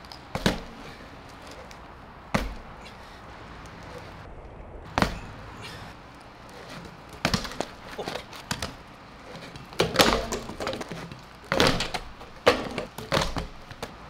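BMX bike knocking and clattering on concrete during flatland tricks: tyres, pegs and frame striking the ground in sharp knocks, a few seconds apart at first and bunched into clatters in the second half as the bike drops and the rider bails.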